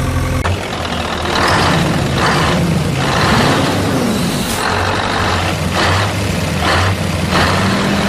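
Heavy truck engine running steadily low, broken by about six short hisses and one pitch that rises and falls about three seconds in.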